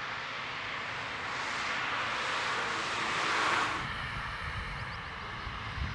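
Distant BMW 328 coupe with a straight-six engine, its engine and tyre noise growing louder as the car comes on during a drift run. The noise is loudest about three and a half seconds in, then drops off abruptly and carries on fainter.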